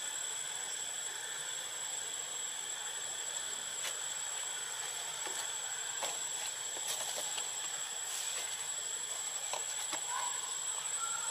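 Steady outdoor background hiss with a constant high-pitched whine running through it, and a few faint clicks.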